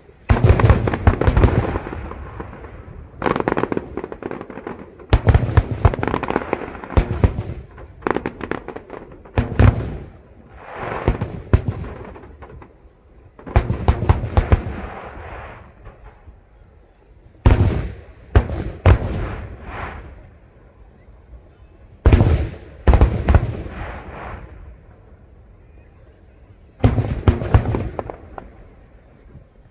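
Aerial fireworks display: volleys of shell bursts, sharp bangs that each trail off in a rumble, coming in clusters every few seconds with short lulls between.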